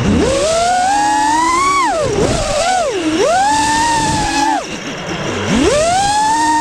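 Multirotor drone's electric motors and propellers whining loudly, heard from the drone's own camera. The pitch rises and falls with the throttle: it dips sharply about two and three seconds in, sinks low around five seconds, then climbs again.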